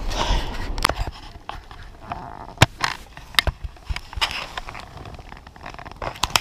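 A hiker's footsteps on the trail: irregular knocks and scuffs, several a second at times, with a short breathy hiss in the first second.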